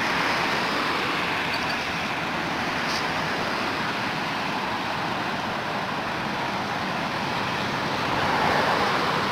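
Steady outdoor background noise: an even roar with no distinct events in it.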